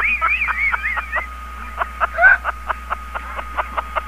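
Quick high-pitched laughter for about the first second, then a steady ticking rhythm of about three to four ticks a second under a held tone.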